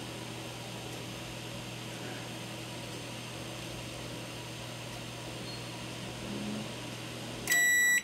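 George Home GDM301B-16 microwave oven running with its casing off, giving a steady hum: it is working again after a no-power repair. Near the end the hum cuts off and a loud beep starts as the timer reaches zero.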